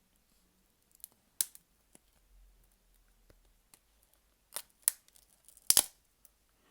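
A few sharp clicks and taps of small hard phone parts and hand tools being handled on a workbench, scattered and irregular, the loudest near the end.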